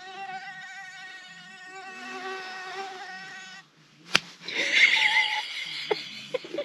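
A mosquito whining in flight: a high, steady buzz with a slightly wavering pitch that cuts off suddenly about three and a half seconds in. A sharp click follows, then a louder, rougher burst of sound lasting about a second.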